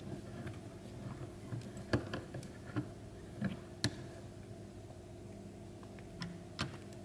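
A few scattered light clicks and taps of a brass pen fitting and wooden barrel being handled against the steel jaws of a vise, the sharpest about two and four seconds in, over a steady low hum.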